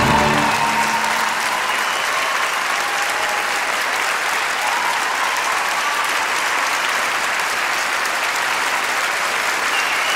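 Large audience applauding steadily, with a few cheering voices. The final chord of the band stops just as it begins.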